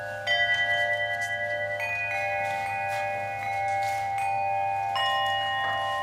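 Orin bells, tin-and-copper Buddhist bowl bells hung in rows as an instrument, struck one after another with a mallet. There are four strikes, a quarter second in, two near two seconds and one near five seconds, and each note rings on with a long, wavering tone that overlaps the next.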